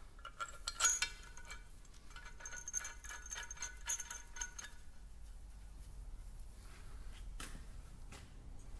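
Steel bolts and metal parts clinking and rattling as they are handled, with a run of ringing clinks in the first four or five seconds, the sharpest about a second in, then only an odd faint tap.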